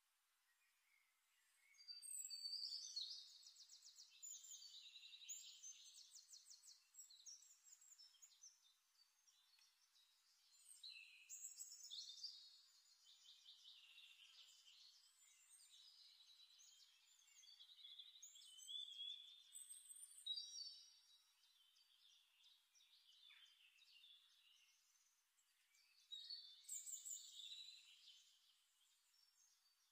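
Faint birdsong: a small bird singing several trilling, chirping phrases of a few seconds each, with quieter chirps in the pauses between them.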